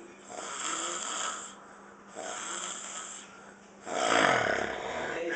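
A man snoring in his sleep: two breathy snores about a second long each, then a louder, longer snore near the end whose pitch falls.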